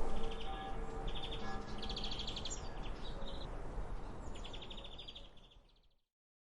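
Birds chirping in short, rapid trills over the fading ring of a church bell and a low outdoor rumble; everything fades out and stops about five and a half seconds in.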